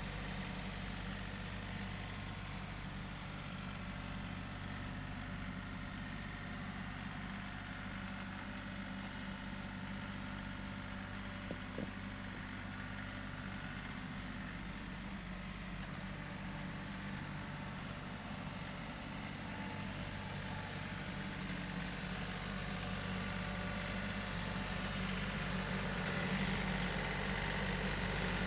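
Tractor engine running steadily, with a brief click about twelve seconds in. It grows a little louder near the end.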